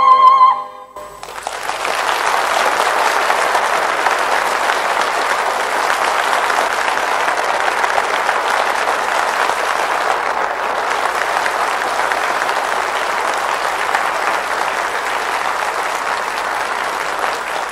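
A held final note with vibrato ends in the first second, then a concert audience applauds steadily.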